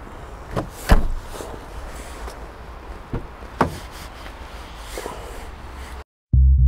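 Several knocks and thumps in a car over a steady low rumble, the loudest about a second in. Background music with a bass line starts suddenly near the end.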